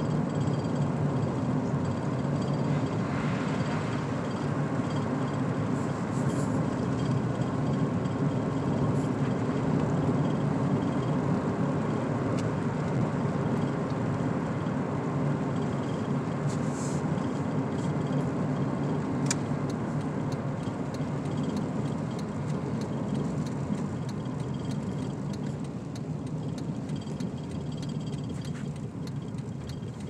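Steady road and engine noise heard inside a car driving on a snow-covered road, easing off over the last several seconds as the car slows.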